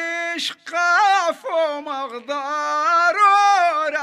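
A man singing an Amazigh (Tashelhit) song in a high, bending melodic line, unaccompanied, with brief breaks between phrases.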